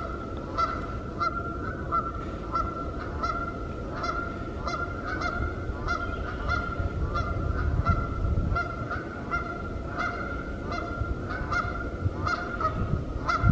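A flock of Canada geese honking without pause, the calls coming about two or three a second and overlapping.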